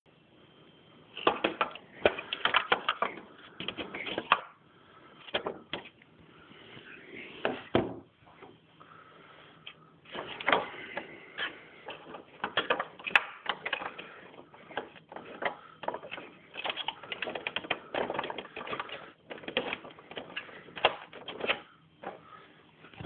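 Hard plastic toy parts clicking, knocking and rattling irregularly as a 1970s toy van is handled, in uneven flurries with short pauses.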